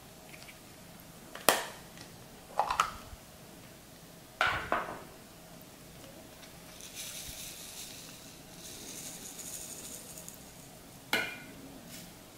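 Containers and utensils being handled at a table for slime making: four sharp clinks and knocks, with a soft, high rustling hiss for a few seconds in the middle.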